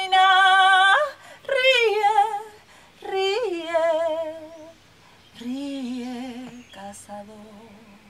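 A woman singing wordless vocal phrases: a held note about a second long, then several shorter phrases with wide vibrato.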